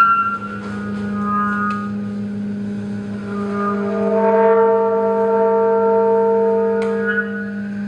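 Tenor saxophone and piano playing free, aleatoric contemporary music. After a sharp attack, one long steady low note is held throughout, and higher sustained notes swell in about three seconds in and fade out near the end.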